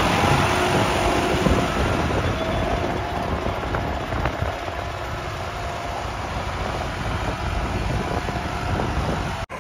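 New Holland 5620 tractor's common-rail diesel engine running steadily under load while it drags a tine cultivator through dry soil. It grows gradually quieter as the tractor pulls away.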